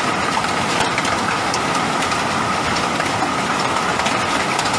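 Heavy rain mixed with hail: a steady downpour with many small ticks of hailstones striking.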